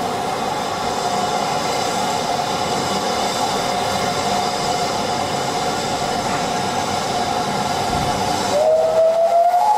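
Steam hissing steadily from BR Standard 5MT steam locomotive 73082, with a steady tone over the hiss. About a second before the end the locomotive's steam whistle opens, its pitch sliding upward.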